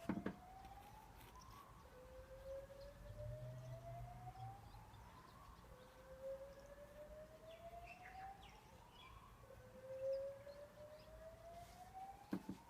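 Distant fire alarm sounding a slow whoop: a faint tone that rises over about three seconds, drops back and starts again, about four times.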